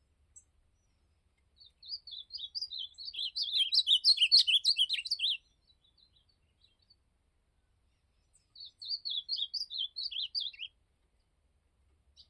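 Ultramarine grosbeak (azulão) singing: two quick, warbling phrases, the first longer and louder, the second a few seconds later.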